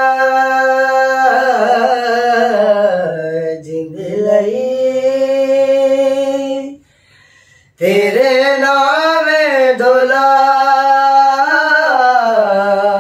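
Men singing a Punjabi song unaccompanied, with long held notes and ornamented runs. The singing breaks off for about a second just past the middle, then resumes.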